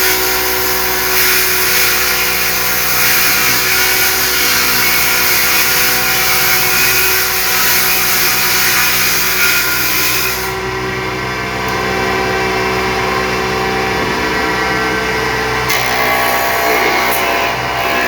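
Power tool running steadily while working wood; its high hiss drops away about ten seconds in, and the sound changes again near the end.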